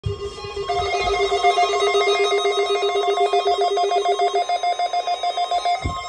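A NOAA weather radio receiver's alert alarm sounding: a rapidly pulsing electronic trill in two tones, the lower tone dropping out about three-quarters of the way through. It is the receiver's alarm being set off by the Required Weekly Test signal. A few low thumps of handling come with it.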